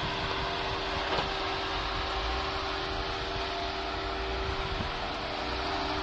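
Jeep Wrangler Rubicon engine running steadily at low revs as it crawls over boulders, with a brief knock about a second in.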